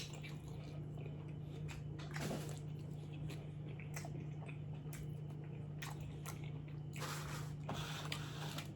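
A person biting and chewing a chili cheese dog close to the microphone: scattered small clicks and brief mouth noises over a low steady hum.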